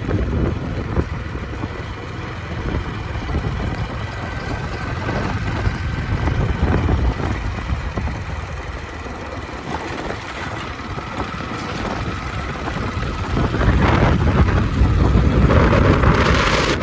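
A road vehicle driving along, its engine and tyre noise mixed with wind buffeting the microphone, growing louder in the last few seconds.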